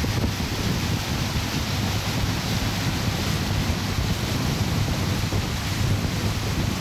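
Wind rushing over the microphone on a pontoon boat under way, with water noise and a steady low drone from the boat's motor.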